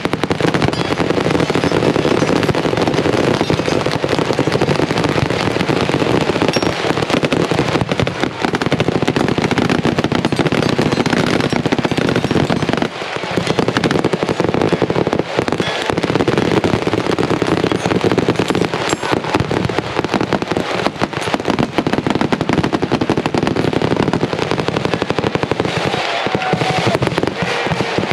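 Many guns, machine guns among them, firing at once from a firing line: a mad minute of dense, unbroken gunfire with overlapping shots, easing only briefly about halfway through.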